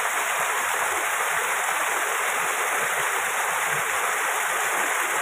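Steady rush of a small waterfall pouring into a shallow stream.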